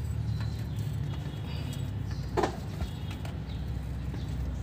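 Faint metal clicks of a wrench working a bolt on the underside of a manual transmission, with one sharper knock about halfway through, over a steady low hum.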